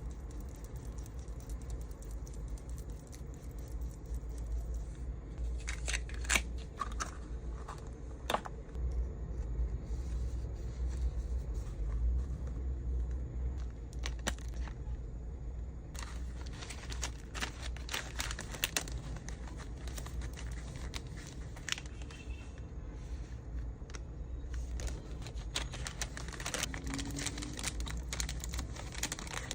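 Hands packing small accessories: plastic packaging crinkling and rustling, with small hard items clicking and clinking in bursts, over a steady low hum.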